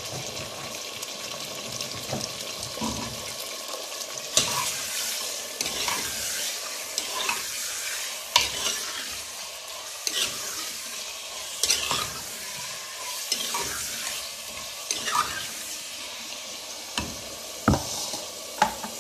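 Chicken pieces frying in hot oil in a clay handi, a steady sizzle, while a spoon stirs them, scraping and knocking against the pot now and then. The raw chicken is being seared until it turns white.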